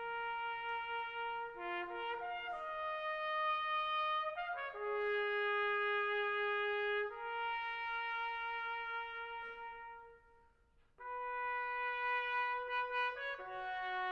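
Slow brass music led by trumpet, playing long held notes with two parts sometimes sounding together. It fades out about ten seconds in and comes back a second later.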